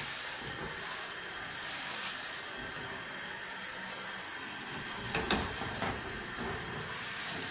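Curry puffs deep-frying in hot oil in a small pot: the oil sizzles and bubbles steadily. A few light clicks, about two seconds in and twice more around five seconds in, come from the wire frying basket in the pot.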